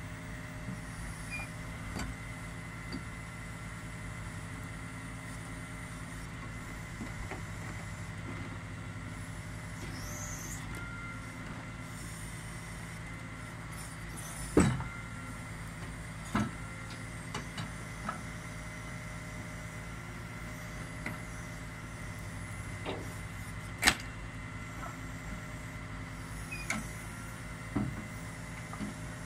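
Boom truck's engine running steadily while its knuckle-boom crane and grapple are worked, with sharp knocks about halfway through and again later, the loudest about four-fifths of the way in.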